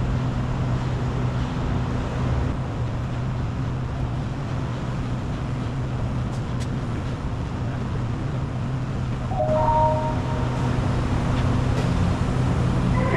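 GO train's diesel locomotive idling at the station platform, a steady low hum. About nine and a half seconds in, a short two-note electronic tone sounds.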